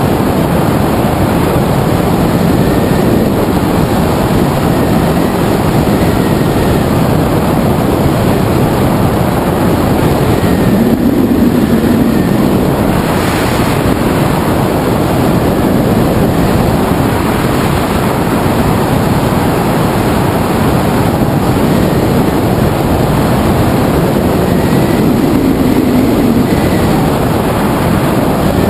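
Wind rushing over an action camera's microphone mounted on the wing of a hang glider in flight: a loud, steady, unbroken rush.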